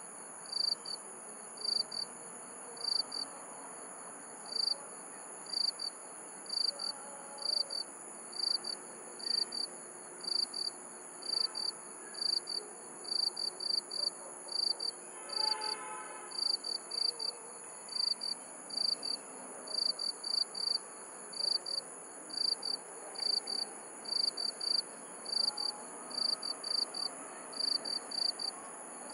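Insects chirping at night: short, high cricket-like chirps, one or two a second, over a steady high-pitched insect trill. A faint pitched sound with overtones comes in about halfway through.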